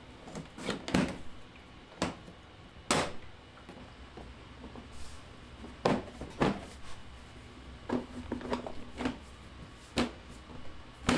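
Hard plastic side panel of a Ski-Doo snowmobile knocking and clacking against the machine as it is fitted back on and pressed into place. About ten sharp knocks come at uneven intervals.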